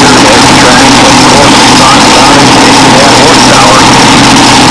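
A mini rod pulling tractor's engine idling loud and steady at the starting line, waiting to pull.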